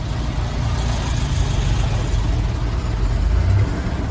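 A motor vehicle's engine running: a steady low rumble with a wash of noise above it.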